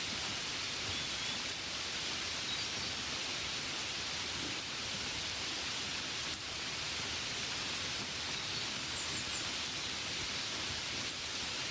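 Steady gentle rain, an even hiss with no break, with a few faint high chirps near the end.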